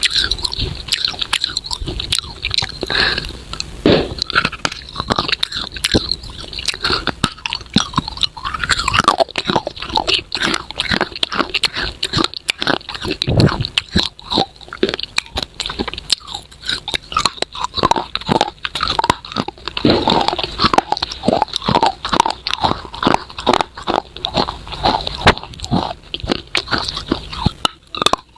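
Close-miked biting and crunching of hard, dry edible clay ('angel crunch' clay pots), with a steady run of sharp crunches as it is chewed.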